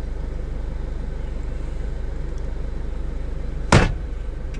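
Steady low-pitched background hum, with one short sharp noise about three and a half seconds in.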